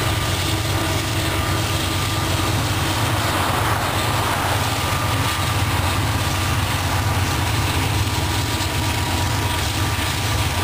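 Steady low rumble of a car driving, heard from inside the car as it paces a freight train, with a faint steady whine above it.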